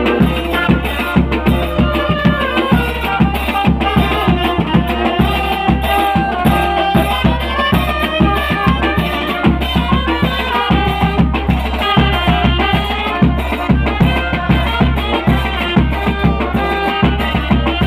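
Tanjidor band music: a melody over a steady, driving drum beat.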